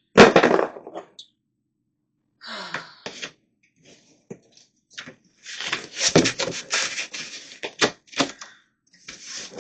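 A cardboard shipping box being cut open and handled: irregular knocks, scraping and rustling of cardboard, heaviest in a busy stretch past the middle.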